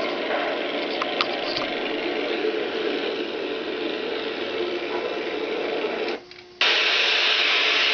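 Steady outdoor noise on an old camcorder recording, with a few light clicks about a second in. About six seconds in the sound cuts out for a moment with a faint low hum, then gives way to loud, even hiss of blank videotape static.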